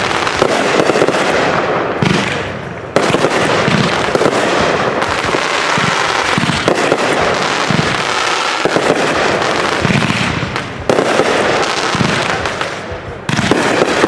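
Consumer fireworks going off in a continuous barrage, with dense crackling and rapid bangs. Fresh volleys break in sharply about 3 seconds in, again near 11 seconds and once more near the end.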